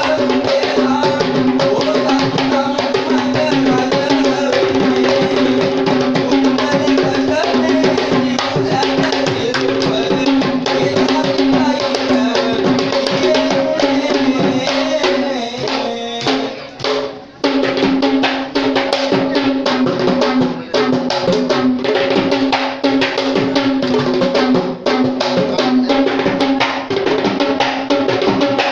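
Ensemble of Sri Lankan traditional drums playing fast, dense rhythms together over a steady held tone. The drumming breaks off briefly about two-thirds of the way through, then comes back in.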